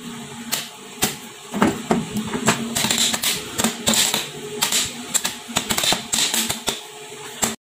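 Corn kernels popping inside an instant stovetop popcorn foil pan on a gas burner: irregular sharp pops, coming thickest about halfway through.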